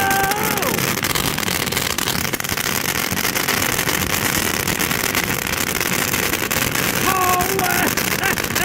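A 500-gram firework fountain burning and spraying sparks: a loud, steady hiss thick with fine crackling. A short voiced exclamation comes near the end.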